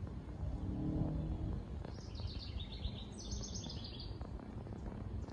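A songbird singing a rapid series of high chirping notes for about two seconds, starting about two seconds in, over a steady low outdoor rumble, with a brief low hum about a second in.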